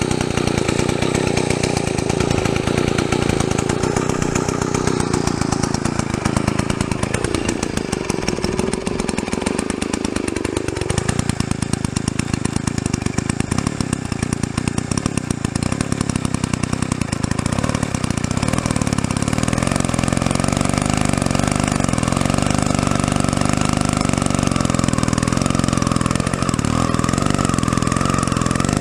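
Druzhba-4 Elektron two-stroke chainsaw running while sawing wood. Its engine note sinks sharply about seven seconds in and climbs back about four seconds later, then runs steadily.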